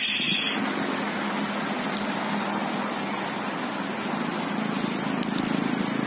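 Steady outdoor hiss and hum of city traffic, with a brief high rush at the very start as the released sun conures flap off close to the phone.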